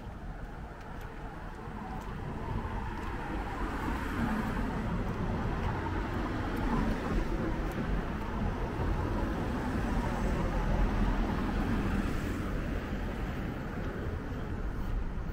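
Road traffic: a car's engine and tyres grow louder as it approaches along the street, loudest around the middle, then ease off slightly.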